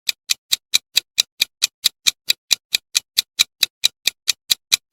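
A countdown timer's clock ticking, short sharp ticks at an even pace of about four a second.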